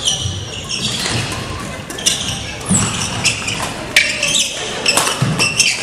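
Badminton rally on a wooden gym floor: sharp racket strikes on the shuttlecock about once a second, with sneakers squeaking and feet thudding as the players move.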